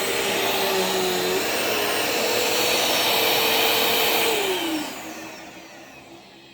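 Bissell CleanView Swivel Pet upright vacuum running with a steady motor whine, then switched off about four seconds in, its pitch falling as the motor spins down. The owner finds the motor sounds a little dried out compared with other vacuums.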